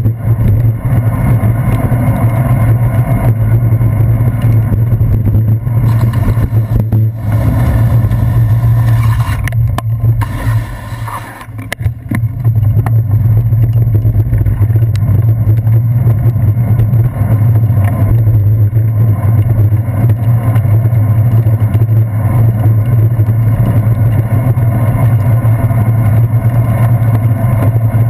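Steady low wind rumble and road vibration picked up by a handlebar-mounted action camera on a bicycle riding on wet city streets. It drops away briefly about eleven seconds in, then comes back.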